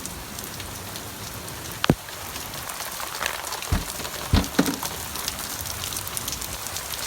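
Heavy rain pouring down with hail, a steady hiss broken by a few sharp knocks close to the microphone, the loudest about two seconds in and around the middle.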